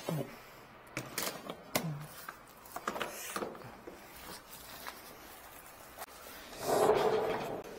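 Scattered knocks and clatter of plumbing tool cases and drain-cleaning equipment being handled and carried, with a louder noise lasting about a second near the end.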